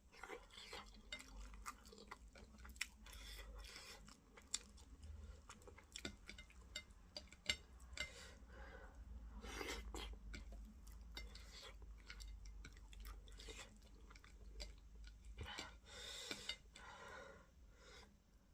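Close-miked chewing and lip smacking while eating fufu with okra fish stew: wet mouth sounds with many irregular sharp smacks and clicks.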